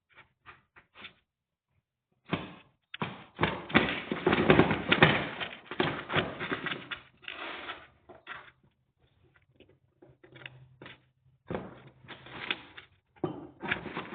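Scrabbling, rustling and knocking inside a box as a cat goes after a trapped mouse, in irregular bursts that are busiest a few seconds in and again near the end, with scattered light scratches between.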